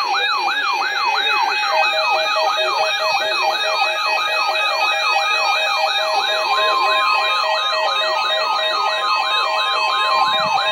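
Electronic emergency alert siren: a fast yelp sweeping up and down about three times a second, layered with pulsing beeps. A steady tone joins about two-thirds of the way in.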